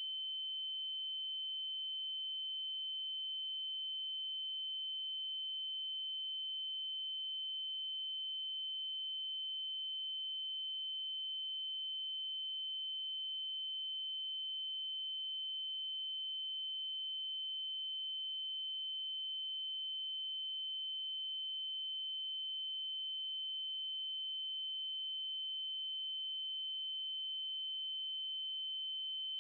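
Synthesized 3072 Hz triangle-wave tone held at one steady pitch, a high, pure whistle-like note with faint higher overtones. A faint tick recurs about every five seconds.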